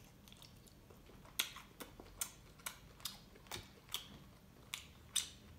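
Faint, close-miked chewing, with short wet mouth clicks coming about two to three times a second from about a second and a half in.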